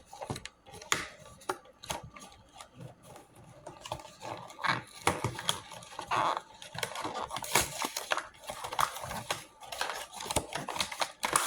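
Pop Mart blind box packaging being opened and handled: irregular crinkling and tearing of the wrapping, with many small clicks and taps.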